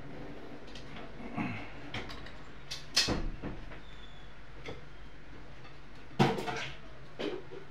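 Kitchen dishware and utensils knocking: a few light taps and two sharper knocks, each followed by a short rattle, over a steady low hum.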